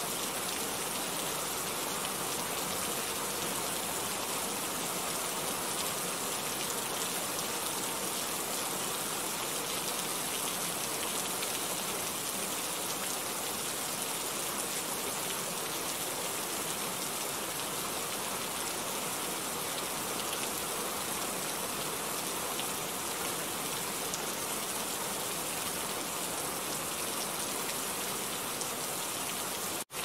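Steady rain falling, an even, unbroken hiss.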